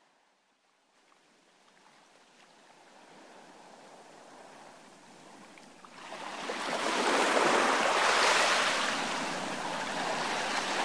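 Ocean surf: waves washing in, fading in faintly and then swelling loud about six seconds in, surging and ebbing.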